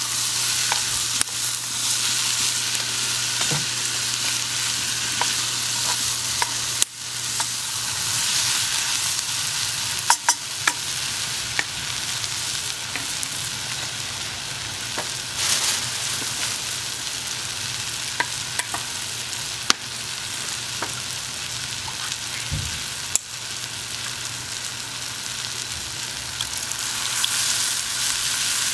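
Chopped onions sizzling in a cast-iron Dutch oven over a wood fire, with a wooden spatula stirring them, and scattered sharp crackles over the steady sizzle.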